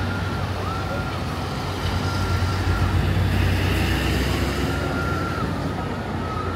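Steady outdoor background noise with a low rumble that swells a little in the middle.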